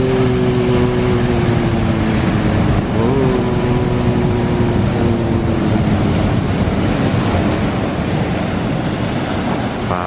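Ocean surf breaking and washing over rocks, with wind buffeting the microphone. Over it, a low tone with several overtones holds for the first six seconds or so, wavering about three seconds in before fading.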